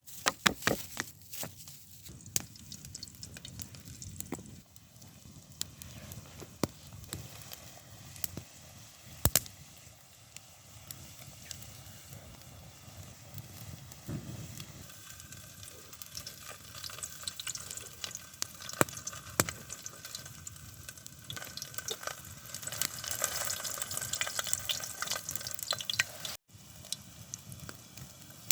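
Food sizzling in a frying pan, with scattered clicks and knocks from utensils. The sizzle grows louder near the end.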